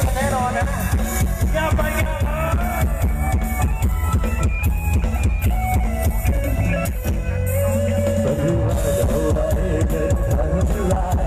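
Loud music with electric guitar, drum kit and heavy bass, blasted from a Thai rot hae parade truck's sound system with a steady beat, picked up on a phone microphone.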